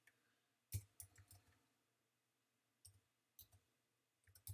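Faint keystrokes on a computer keyboard: single clicks and short runs of clicks with pauses between them, as a command is typed slowly.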